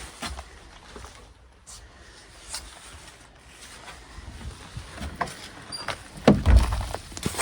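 Footsteps and rustling of a hiker walking a leafy, rocky trail: scattered light crunches and clicks, then a couple of heavy low thumps near the end.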